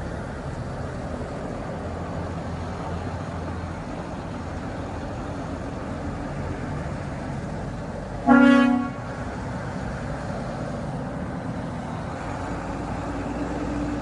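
Large tour coaches driving past one after another, engines running steadily. A little over eight seconds in, one bus horn gives a single short, loud blast on one pitch.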